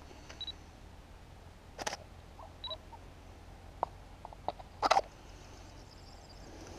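Handling noise on a handheld camera: a few sharp knocks and rustles, the loudest just before the end. Two short, faint high beeps sound, one near the start and one about halfway through.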